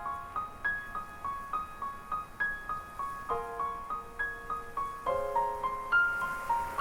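Background music: a gentle melody of short, ringing piano-like notes at about three or four a second, with a few low chords held beneath it.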